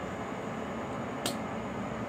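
Steady mechanical running noise, like a motor or fan, with one short sharp click about a second in.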